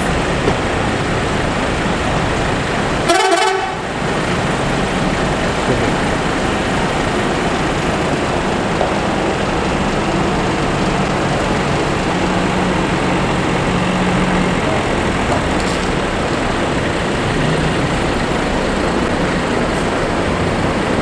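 Steady road traffic noise with heavy vehicle engines, broken about three seconds in by a single short, loud vehicle horn blast.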